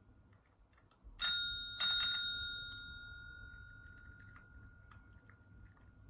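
A desk service bell struck twice by a cat's paw, about half a second apart: two bright dings whose ringing fades out over a few seconds.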